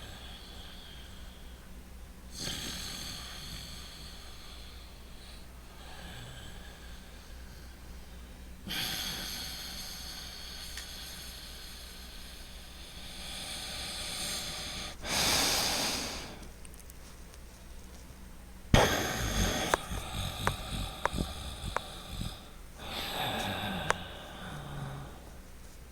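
Loud, deliberate breathing in and out through the nose during a tai chi breathing exercise, with irregular pauses where breaths are held. There is a long hissing breath, then a louder, forceful one about 15 s in, and a run of short, sharp snorts and sniffs around 19–22 s.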